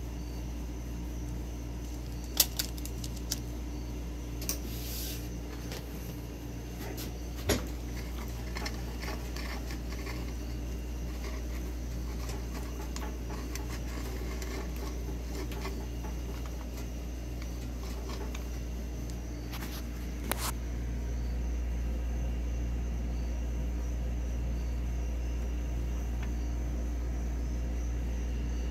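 Steady low background hum with a few sharp metal clicks and clinks scattered through it, from hands working the carriage and tool post of a 7x10 mini lathe. The hum grows a little louder about two thirds of the way through.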